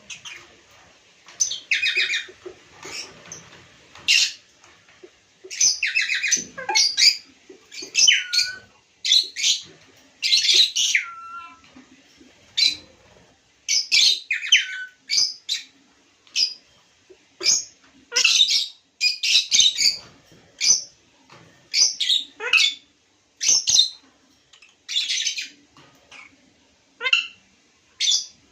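Pet lovebirds chirping and squawking: a busy run of short, shrill calls one after another, a few of them sliding down in pitch at the end.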